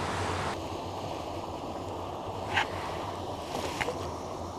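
Steady outdoor noise of wind and river water at the water's edge, with two brief light clicks, one a little past halfway and one near the end.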